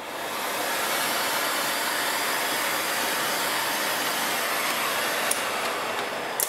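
Handheld Stanley hot air gun running steadily with a loud, even rush of blown air. It cuts off with a click near the end.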